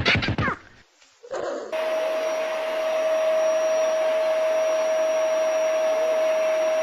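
Steady whirring of a small electric motor moving air, with a constant whine over the rushing noise, starting about a second and a half in. A snatch of music fades out just before it.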